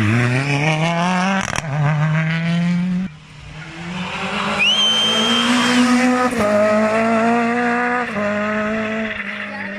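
Ford Fiesta rally car's engine revving hard out of a hairpin and pulling up through the gears with quick upshifts. It cuts off suddenly, and a second rally car's engine grows louder as it approaches, shifting up twice, with a brief high squeal near the middle.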